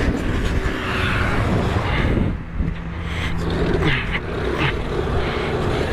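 Motor vehicle engine running close by amid road and wind noise, with a steady pitch that holds for about a second and a half, then falls away.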